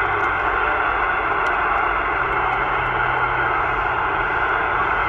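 Steady static hiss from the speaker of an AnyTone CB radio receiving on lower sideband, with no station talking, only band noise.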